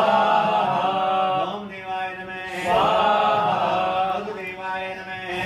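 Voices chanting Hindu mantras in long held phrases, a new phrase swelling up about halfway through.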